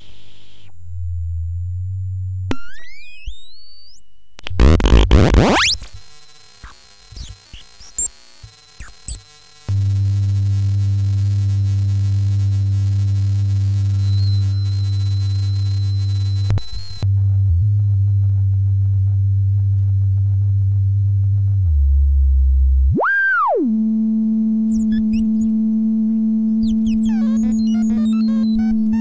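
Homemade modular synthesizer, built on stripboard, making electronic bleeps and drones: a low buzzing tone, quick rising pitch sweeps about two to five seconds in, then a high steady whistle over a loud low drone. About 23 seconds in a tone swoops up and back down and settles into a steady mid-pitched hum, with fast chirping blips near the end.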